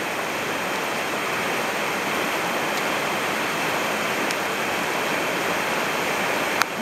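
Mountain stream water rushing steadily, with one sharp click near the end.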